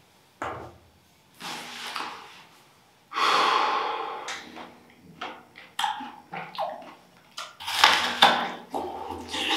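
A distressed man breathing heavily: sharp intakes of breath, a long loud exhale about three seconds in, and ragged breaths near the end, with a few small clicks in between.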